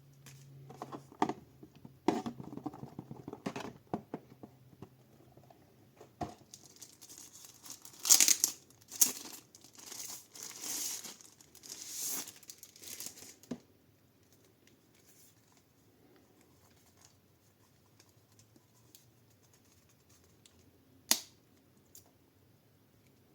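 Packaging being handled, crinkling and tearing in irregular bursts, loudest in the middle, then quiet apart from one sharp click near the end.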